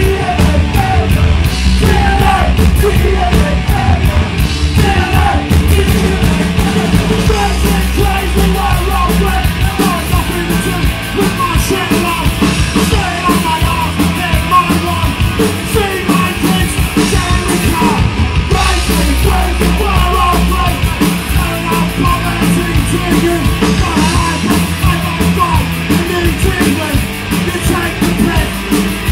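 Punk rock band playing live, with loud electric guitars, bass and drums and some shouted singing.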